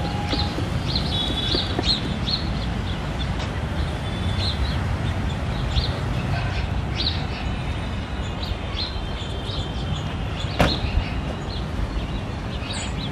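Street ambience: a steady low traffic rumble with birds chirping repeatedly over it, and a single sharp knock about ten seconds in.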